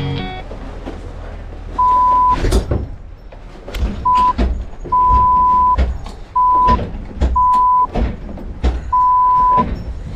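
Six censor bleeps: a loud, single steady beep tone cut into pieces of uneven length, about a quarter second to most of a second each. Under them are scattered knocks and clunks from a heavy touring motorcycle being handled inside a wooden enclosed trailer.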